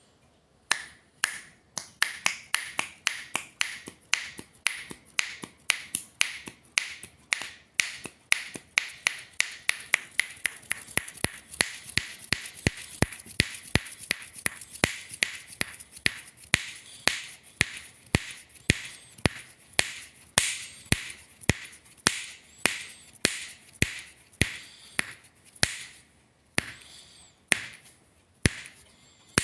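Fingers snapping over and over, sharp crisp snaps at roughly two to three a second, slowing and thinning out near the end.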